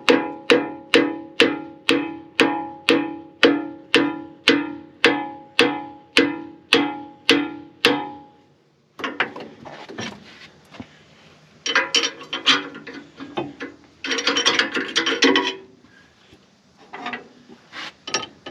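A hammer repeatedly striking a steel pin to drive it into a bulldozer C-frame bushing: about sixteen evenly paced blows, roughly two a second, each with a bright metallic ring. The blows stop about eight seconds in, followed by irregular metal clinking and scraping as the parts are shifted.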